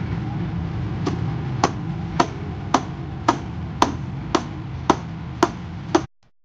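Hammer blows on the hub of an old spoked wheel: about ten sharp metallic strikes, evenly spaced at roughly two a second, over a steady low rumble. The sound cuts out abruptly near the end.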